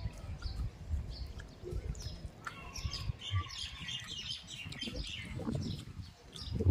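Small birds chirping repeatedly in short, quick calls, over irregular low thumps close to the microphone.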